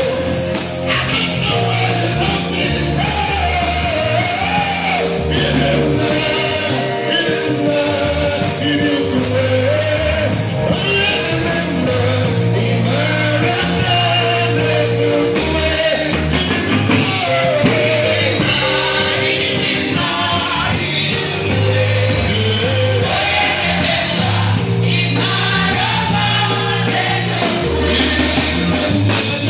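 Gospel choir singing with a live band, over a steady bass line and a regular beat.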